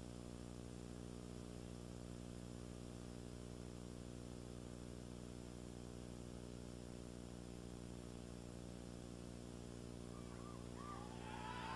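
Steady electrical hum and hiss of a VHS tape transfer. Near the end, a few wavering high-pitched cries begin.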